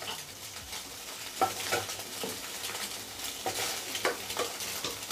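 Scrambled eggs sizzling in oil in a non-stick frying pan while a wooden spatula stirs and scrapes them, with several short scraping strokes over a steady sizzle. The eggs are fully fried.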